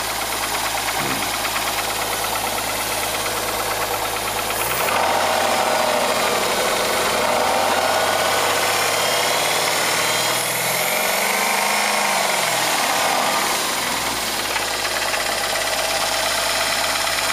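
Rover 75 2.0-litre engine idling, then revved up about five seconds in and revved again before dropping back to idle near the three-quarter mark. Through this runs the knock under the hood that the owner wants diagnosed.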